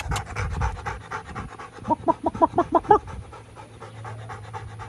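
A dog panting rapidly, about seven breaths a second, with a louder run of voiced pants about two seconds in.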